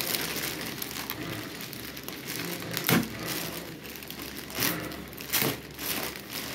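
A clear polythene bag crinkling and rustling as hands pull it off a weighing machine, with a few sharper crackles, the loudest about three seconds in.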